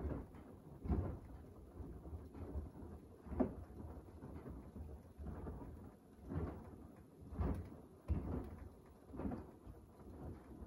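Beko WDR7543121S washer-dryer's drum tumbling a soapy wash load: water and wet laundry slosh and swish as the clothes drop, in irregular surges about every second.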